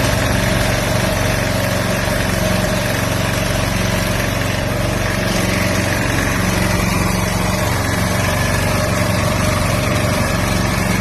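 Gas-powered portable inverter generator engine running steadily at an even pitch.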